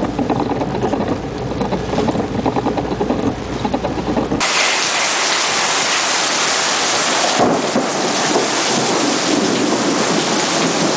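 Heavy rain pouring down. For the first four seconds or so it comes with a low rumble, then the sound switches suddenly to a bright, steady hiss of downpour.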